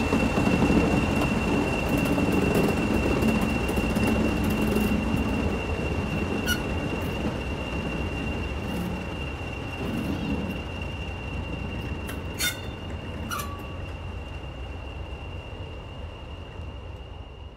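English Electric Class 40 diesel locomotive 40106 running as it draws away along the track, its engine rumble fading, with the steady high turbocharger whistle that gave the class its 'Whistler' nickname. A few sharp clicks come in the second half.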